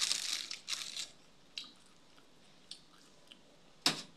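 Close-up chewing of food, densest in the first second, followed by a few faint clicks and one sharp click near the end.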